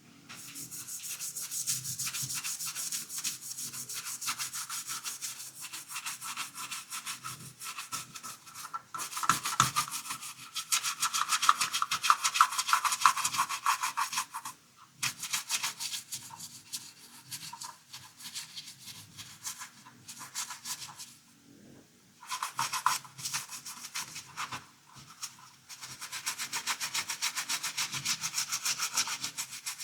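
Rapid scrubbing strokes of a brush over a dirty toy Batcar, in stretches of several seconds with short breaks between them.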